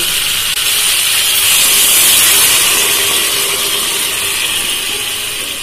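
Hot water poured into a hot kadai of fried cauliflower and potatoes in oil and masala, hissing and sizzling loudly. The hiss swells about two seconds in and then slowly eases off.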